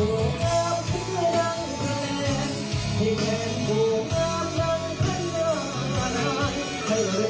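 A male singer singing live into a microphone over instrumental backing music.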